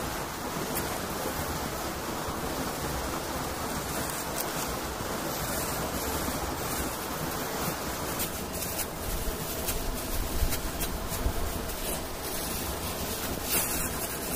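Rustling and crackling of leafy branches and dry leaves being handled and laid down as shelter bedding, the clicks coming more often from about eight seconds in, over a steady rushing background noise.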